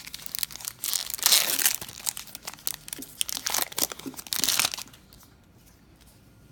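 Foil wrapper of a Magic: The Gathering booster pack being torn open and crinkled in the hands, in crackling bursts of rustle. The crinkling stops about five seconds in, leaving only a few faint clicks as the cards are handled.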